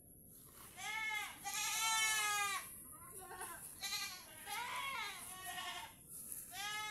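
Goats bleating: a series of about five high-pitched bleats, each rising and falling in pitch, with short gaps between them.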